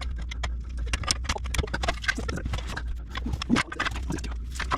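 Irregular clicks, taps and knocks of metal being worked as a classic Mustang's exhaust header is wrestled into place and its bolts tightened, over a steady low hum.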